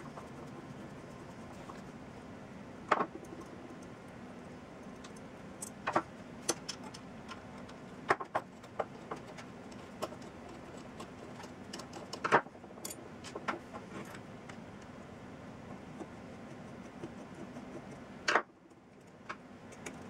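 Scattered sharp clicks and taps of a screwdriver working the small screws that hold the heating element in a Hakko 802 desoldering handpiece, and of the handpiece being handled, over a faint steady hum.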